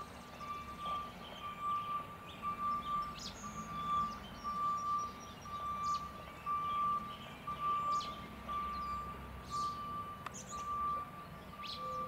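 A high, steady-pitched beep repeating about twice a second, with birds chirping.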